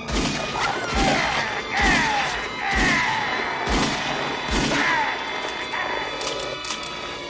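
A series of six gunshots, roughly one a second, each answered by a snarling cry from the man-werewolf as he is hit, over film score.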